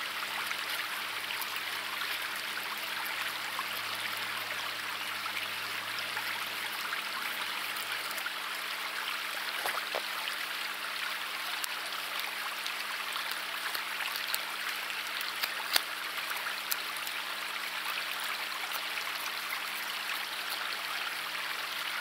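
River water running steadily, a continuous rushing hiss, with a few short clicks standing out, the sharpest about two-thirds of the way through.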